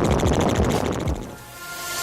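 Helicopter rotor noise with a fast, even chop that fades out over the first second and a half. Steady electronic music tones then swell in.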